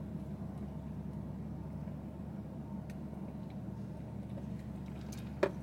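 Steady low hum of a car idling, heard from inside the cabin, with one sharp click near the end.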